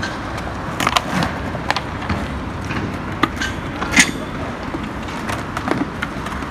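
Skatepark ambience: scattered sharp clacks of skateboards over a steady hum of traffic, the loudest clack about four seconds in.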